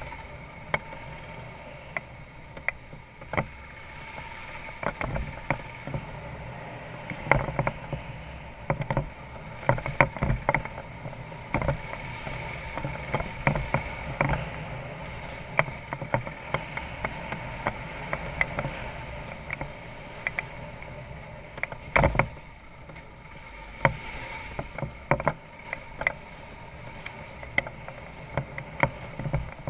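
BMW F650GS Dakar's single-cylinder engine running steadily at low speed on a rough gravel track, with frequent sharp knocks and rattles as the bike jolts over bumps and stones; the loudest knock comes about 22 seconds in.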